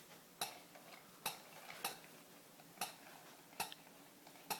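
Toddler walking a toy puppy along on a leash: six faint, sharp clicks at an uneven pace, about one every three-quarters of a second.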